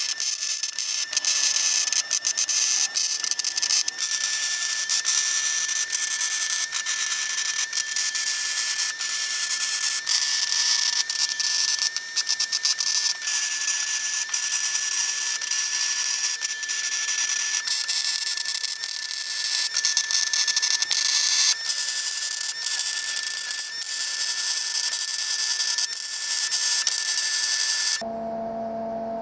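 MIG welding arc from a Longevity MigWeld 140 running steel wire under C25 shielding gas, laying beads on steel roll-cage tubing: a steady, dense crackling sizzle with a thin steady whine under it. The crackle breaks off about a second before the end, and a short low hum takes over.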